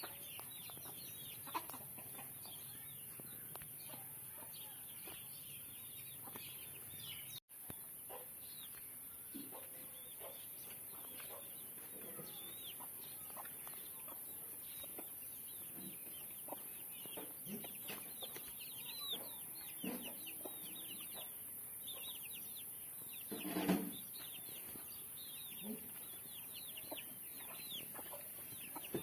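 Chickens clucking in a farmyard, with many short high chirps throughout and one louder call a little past two-thirds through. The sound cuts out briefly about a quarter of the way in.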